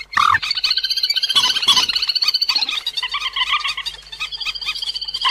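Cuốc biển calls from a bird-trapping lure recording: fast, continuous chattering runs of short, high, ringing notes.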